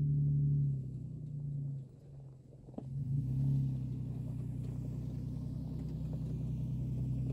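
Nissan Xterra's V6 engine running at low speed as the truck rolls slowly along a dirt track. It drops quieter about two seconds in, then comes back up and holds steady, with a single click near the middle.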